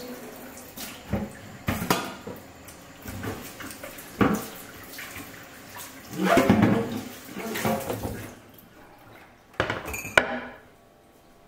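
Dishes and bowls clattering at a kitchen sink with water running, as shredded kelp is rinsed. Two sharp knocks come about ten seconds in, then the sound stops.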